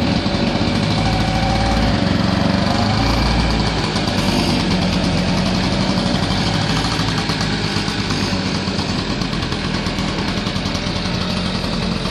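Piaggio Ape 50's small two-stroke single-cylinder engine running steadily just after a clean start, its pitch rising and falling a little in the first few seconds as the three-wheeler moves off.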